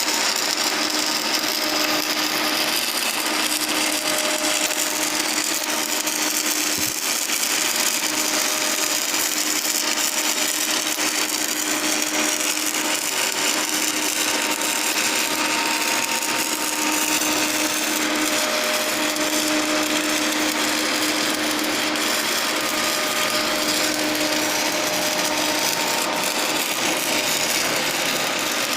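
Electric welding arc on a pipe, a steady dense crackle and hiss that runs on without a break, with a faint hum coming and going under it.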